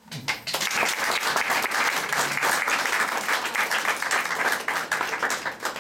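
A small audience clapping, starting suddenly and dying away near the end.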